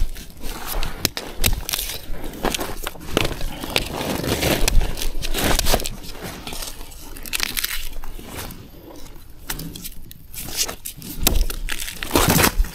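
Dry bamboo leaves and stems crackling and rustling, with many scattered sharp snaps and cracks, thickest in the first half.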